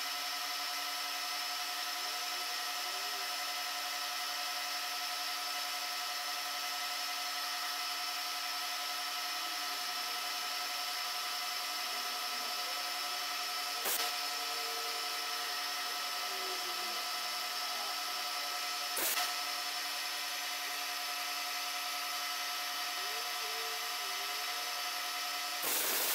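Milling machine running steadily with its cutter milling a slot in a small table casting, a constant machine whine with a light click about halfway through, another a few seconds later, and a louder one near the end.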